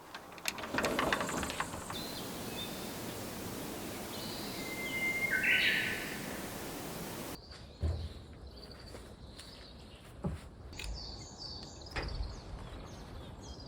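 Outdoor background: a steady hiss with scattered clicks, then after an abrupt change quieter ambience with short high bird chirps and a few dull knocks.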